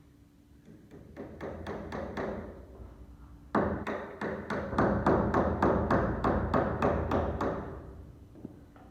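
A quick, even series of knocks on wood, about four a second, growing louder partway through and fading out near the end.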